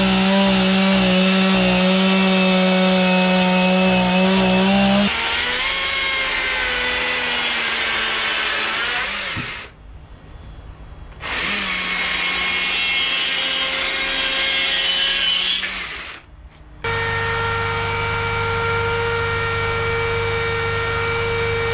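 Chainsaw running at high revs while carving wood, in several stretches joined by abrupt cuts. The saw drops away briefly twice, around ten seconds in and again around sixteen seconds.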